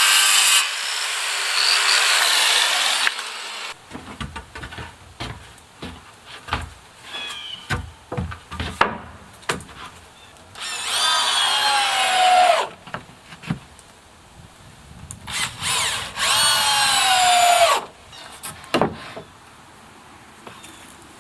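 Power tool working wood: it runs loud at first, then cuts out and winds down over a couple of seconds. Two more bursts of about two seconds follow, each falling in pitch as the trigger is let go. Scattered knocks and handling of wood come between the bursts.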